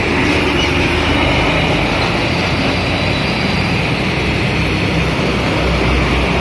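LPG tanker trucks driving past on the road: steady, loud diesel engine and tyre noise of heavy traffic.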